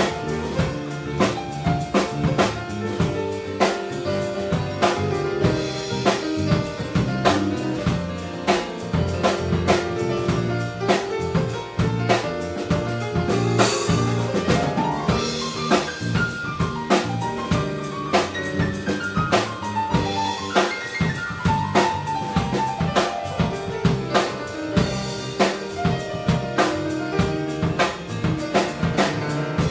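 Instrumental jazz-fusion band playing live: grand piano lines over a drum kit keeping a busy, steady beat, with a cymbal wash about halfway through.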